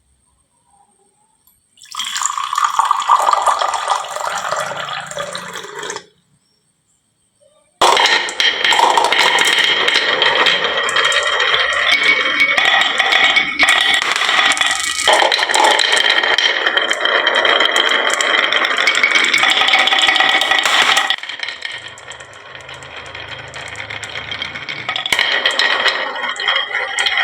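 Many marbles rolling and clattering down a wooden marble-run slope in a dense rattle. It starts about two seconds in, stops for about two seconds, then runs on, easing for a few seconds near the end before building again.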